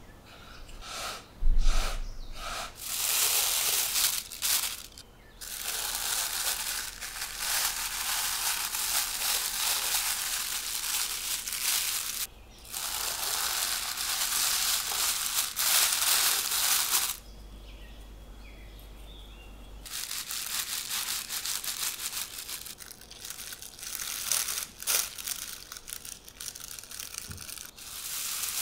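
A few short rubbing strokes of hands shaping bread dough on a wooden board, and a single thump about a second and a half in. After that, thin plastic bags crinkle and rustle at length as dough loaves are pushed into them and the bag tops gathered, with a short lull about two-thirds of the way through.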